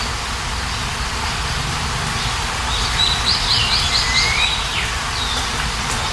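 Steady rain falling, with small birds chirping over it; a quick trill of about half a dozen high notes comes around the middle.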